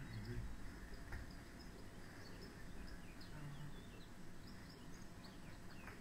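Quiet room noise with a couple of soft taps of juggling balls caught in the hands, about a second in and again near the end, and a scatter of faint, short, high chirps.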